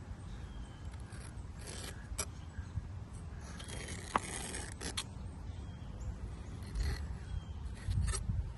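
Handling and scraping noises from caulking work with a power caulk gun: light scrapes and a few sharp clicks over a low rumble.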